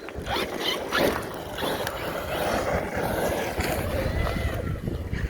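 A Traxxas Sledge brushless RC monster truck driving over rough, stony ground, its tyres and chassis rattling and knocking, with wind on the microphone.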